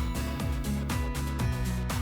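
Background music with a steady beat and a gliding bass line.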